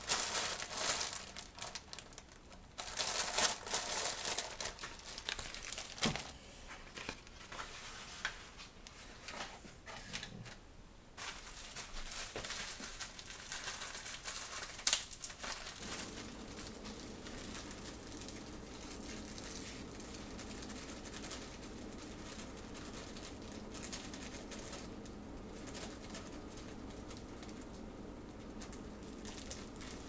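Paper coffee filter crinkling and rustling as it is pulled apart and fitted into a drip coffee maker's filter basket, with scattered small clicks and a sharp tick about halfway. After that a steady low hum carries on.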